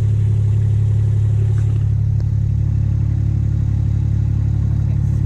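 Kubota utility vehicle's engine running steadily under way, a deep even drone.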